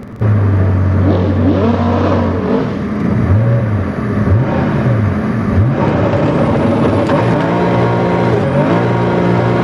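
Car engine revving hard. Its pitch holds steady at first, swings rapidly up and down several times in the middle, then holds high again with a brief dip near the end, typical of hard throttle work while drifting.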